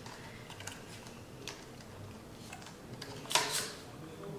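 Scattered faint ticks and taps of plastic makeup packaging being handled, with a couple of louder clicks a little over three seconds in.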